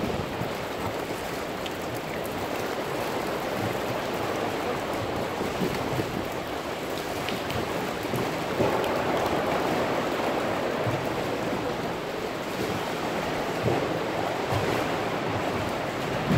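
Water dripping and showering from a sea cave's roof onto the sea surface, with waves sloshing against the rock walls, making a steady wash of splashing water that grows a little louder about halfway through.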